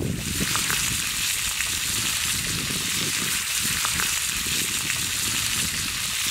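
Sliced baby potatoes and onions sizzling steadily in a frying pan over a campfire, turned now and then with metal tongs that give a few faint clicks.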